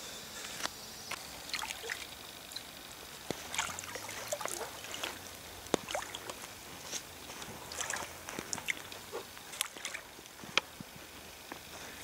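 Cold lake water sloshing and splashing in small irregular splashes as a man wades in up to his waist.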